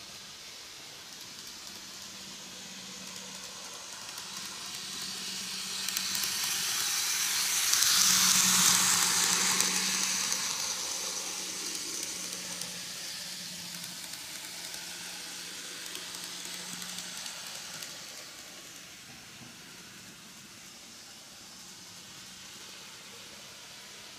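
Greenmax N-gauge model of the Meitetsu EL120 electric locomotive running on curved track: a whirring, hissing motor and wheel noise that grows as it comes toward the microphone, is loudest about eight seconds in as it passes closest, then fades as it runs off around the curve.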